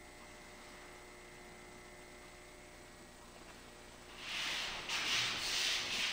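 Faint steady room hum, then from about four seconds in a soft swishing of several sliding steps: bare feet gliding over a wooden dojo floor, with the rustle of hakama, as two kendo practitioners advance toward each other.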